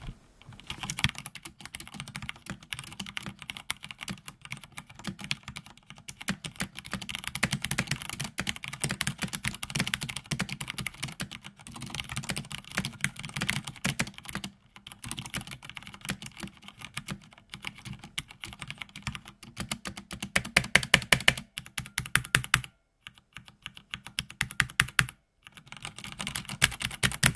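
Typing on a MaiBenBen ZiMai mechanical keyboard with Cherry MX Red linear switches on a metal plate: rapid, continuous key clicks and clacks in fast runs, with a few brief pauses. The fastest, loudest burst of typing comes about two-thirds of the way through.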